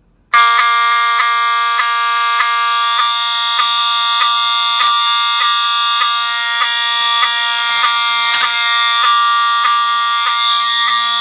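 Fire alarm horns going into alarm all at once, set off by a pulled manual pull station. They start abruptly just after the beginning and keep up a loud, steady blare, with an electromechanical horn among them.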